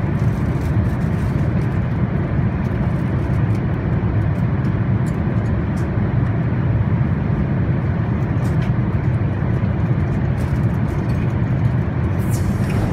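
Steady low cabin rumble of an Airbus A380 in flight, the roar of airflow and engines heard from an economy seat, with a few faint clicks.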